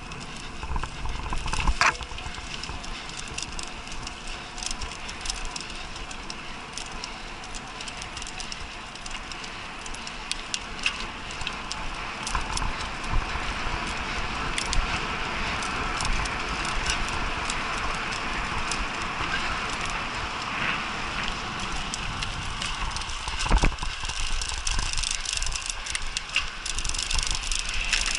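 Mountain bike rolling over a bumpy dirt and grass track, heard from a camera mounted on the bike: steady tyre rumble with constant rattling and clicking of the frame and chain over the bumps, and a couple of harder knocks, one about two seconds in and one about three-quarters of the way through.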